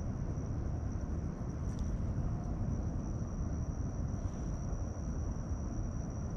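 Crickets trilling in one steady high tone over a low, steady outdoor rumble.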